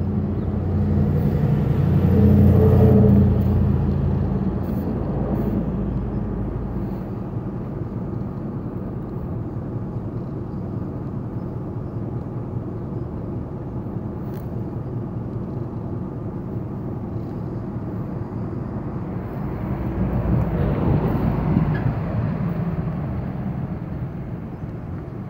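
A motor vehicle engine running, swelling louder about two to three seconds in and again around twenty-one seconds in.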